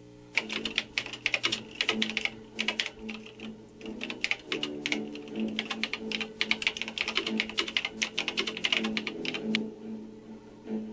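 Typing sound effect: a rapid, irregular run of key clicks that stops near the end, over a low steady drone.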